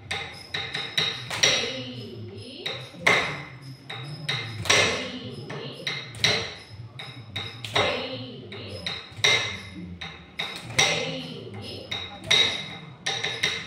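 The beat of a classical Indian dance class being struck out: sharp strikes with a ringing tone, the loudest about every one and a half seconds with lighter ones between, and a low voice underneath.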